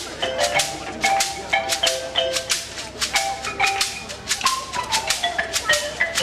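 West African drum ensemble playing a fast rhythm: hand-played djembes and stick-struck dunun barrel drums, with a dense run of sharp strokes. Short ringing pitched notes sound over the drumming.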